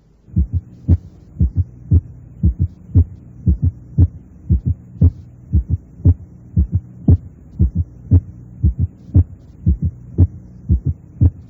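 Heart sounds at about one beat a second, each beat a quick cluster of thuds: an atrial (fourth) heart sound just ahead of the first heart sound, then the second sound. The atrial sound sits close enough to the first sound to be mistaken for it, as happens with a prolonged PR interval. A steady low hum runs underneath.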